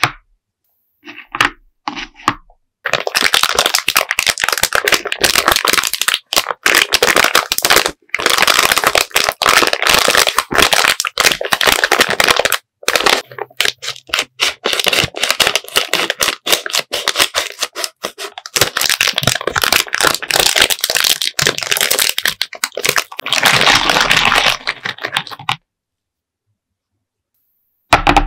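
A few light taps, then a plastic sweets bag of gummy sour kiwi slices crinkling and crackling as it is handled and opened. The crackling stops about three seconds before the end.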